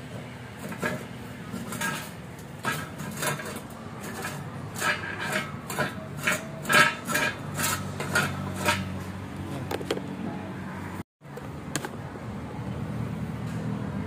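Light metal-on-metal clinks and knocks, about twenty irregular strikes with a short ring, over a steady low hum.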